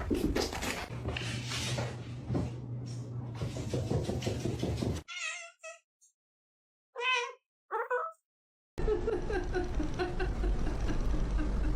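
Domestic cat meowing: three short, wavering meows in a quiet stretch about halfway through. Before and after them is louder, noisy background sound, with a steady low hum in the first part.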